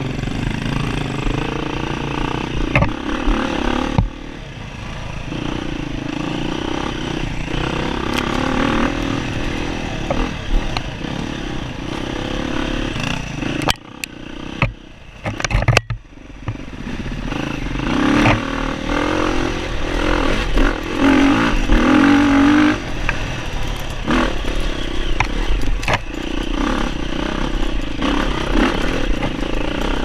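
Dirt bike engine revving up and down under load on a rough trail, with clatter and knocks from the bike over rocks and roots. The engine note drops away briefly about halfway through, then picks up again.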